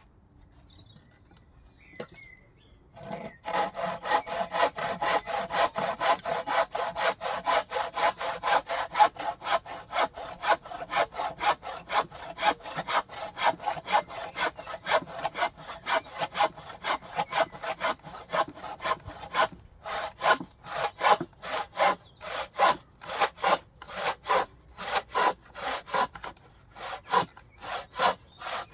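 Hand saw cutting through a piece of wooden timber with steady back-and-forth strokes, about two to three a second. It starts about three seconds in and pauses briefly past the middle before carrying on.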